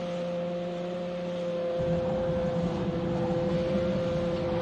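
Heavy-machinery sound effect for a gantry crane moving a load: a steady electric hum with one held tone. About two seconds in, a low mechanical rumble joins it.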